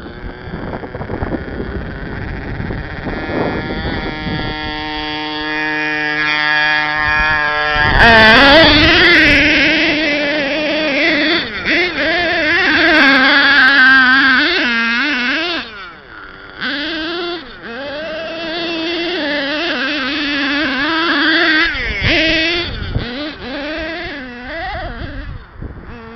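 Nitro engine of a Kyosho Giga Crusher RC monster truck running hard. It holds one steady note for a few seconds, then from about eight seconds in it revs up and down constantly with the throttle as the truck climbs the gravel slope, easing off briefly around the middle.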